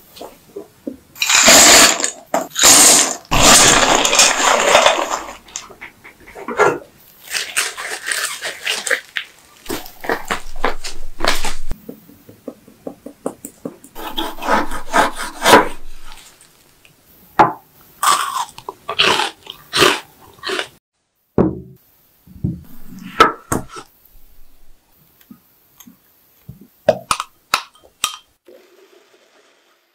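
A string of separate kitchen sounds: a spatula scraping and stirring a thick milk-powder mixture in a nonstick pan, loudest in the first few seconds. Then a sharp knife sawing back and forth through a block of nut nougat, followed by short knocks and taps near the end.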